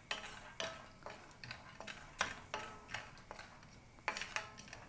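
Wooden spatula stirring peanuts as they fry in oil in a frying pan. The nuts make quick scrapes and clicks against the pan, two or three a second, over a faint sizzle.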